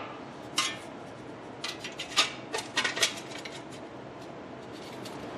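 Light metal clinks and taps, several scattered through the first three seconds, as a new front wheel hub and its steel backing plate are handled and knocked together.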